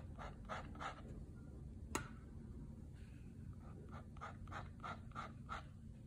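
Ink brush stroking and dabbing on paper: a run of quick soft strokes, about three a second, then a single sharp click about two seconds in, and another run of strokes near the end.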